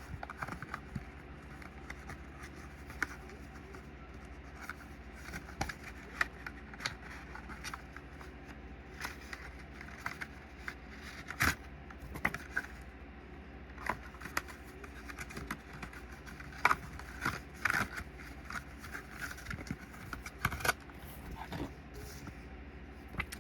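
Cardboard and paper packaging being handled and rummaged through: scattered scrapes, taps and rustles over a steady low hum.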